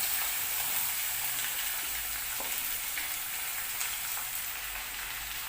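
Sliced onions frying in hot oil with whole spices: a steady sizzle, with a few faint clicks of stirring.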